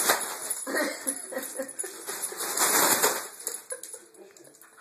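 A foil balloon crinkling and rustling as a small dog pounces on it and shoves it across a tile floor, with scuffling and many small crackles. It quiets down over the last second.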